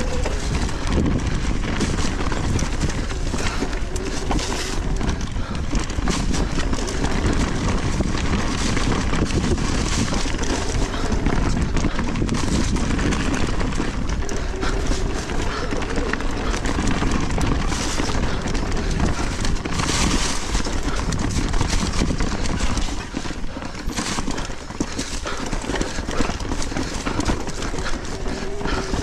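Mountain bike riding a dirt trail: continuous tyre noise with constant rattling and knocking of the bike over bumps and roots. It eases a little about two-thirds of the way through.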